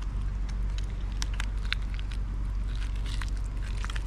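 Steady low mechanical hum, like an engine running, with scattered small clicks and cracks as the split shell of a spiny lobster tail is worked open by hand.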